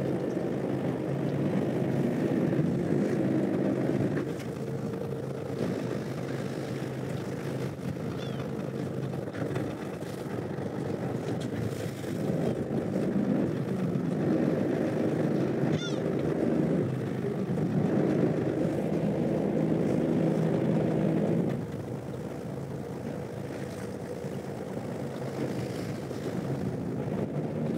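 Fishing boat's engine running steadily, a low even hum that swells louder for several seconds at a time and then drops back.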